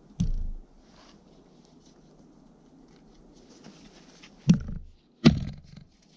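A dull thump a moment in, then two hard knocks less than a second apart near the end: the butt of a wooden axe handle struck down onto a frozen spruce log.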